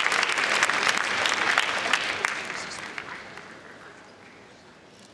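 Audience applauding, the clapping dying away about three seconds in.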